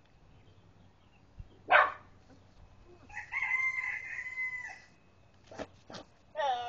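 A goat making odd calls: a short sharp burst about two seconds in, then a strained, flat-pitched cry lasting nearly two seconds that sounds close to a rooster's crow, then two short huffs and the start of another falling call near the end.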